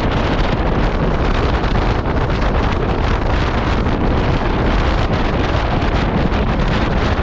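Steady, loud wind rushing over the microphone of a KTM 390 Adventure motorcycle being ridden at speed, drowning out the engine.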